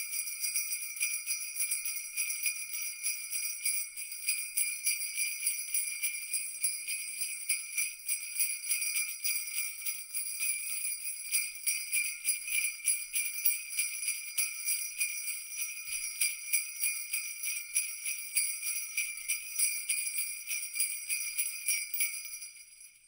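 Jingle bells shaken continuously, a bright jingling that pulses in loudness, fading out near the end.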